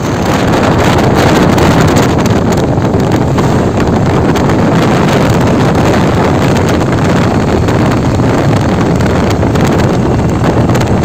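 Loud, steady wind buffeting on the microphone of a moving motorcycle, with the engine and road noise underneath.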